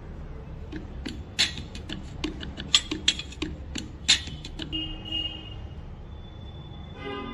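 A run of irregular sharp clicks and ticks for about four seconds, followed by two short beep-like tones.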